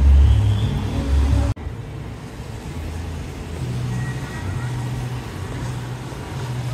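Road traffic on a wet city street: a steady low hum of car engines and tyres. It follows a loud low sound that cuts off abruptly about a second and a half in.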